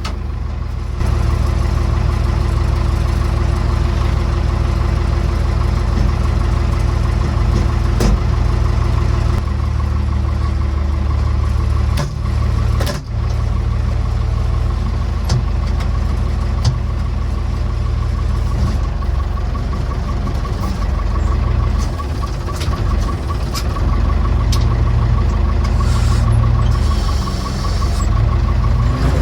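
Massey Ferguson BX50 backhoe's engine running steadily under load, with a steady whine higher up. It grows louder about a second in, and a few sharp knocks and clunks sound around the middle.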